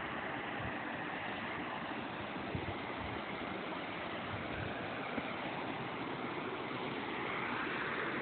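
Steady rushing hiss of running water, with two faint clicks about two and a half and five seconds in.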